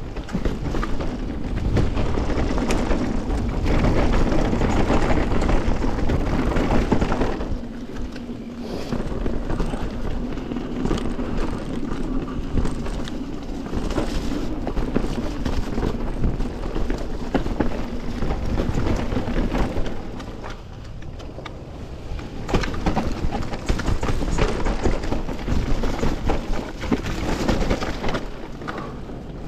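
Canyon Torque:ON electric mountain bike rolling fast down a dirt singletrack: continuous tyre noise and the bike rattling over the rough ground. It eases off briefly about eight seconds in and again around twenty seconds, then picks back up.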